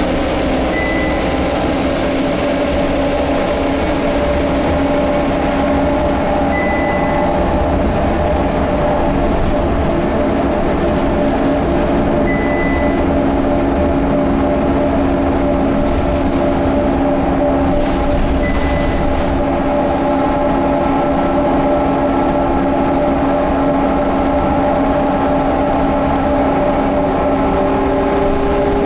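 Scania K230UB bus underway, giving off a loud steady drivetrain whine with a high-pitched whistle above it, which the uploader suspects comes from the turbocharger and the hub reduction axle. A short high beep repeats about every six seconds, and a further whining tone rises near the end.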